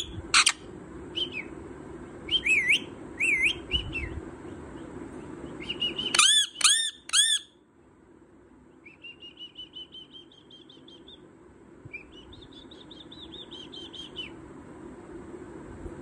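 Indian ringneck parakeet calling: short, sharp chirps that sweep up and down in pitch, the loudest three in quick succession about six seconds in, then quieter runs of rapid chattering notes in the second half.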